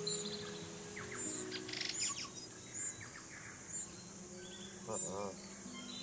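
Tui singing: a mix of short high chirps and whistles, a rapid clicking rattle about a second and a half in, and a gurgling call near the end, over soft background music of held low notes.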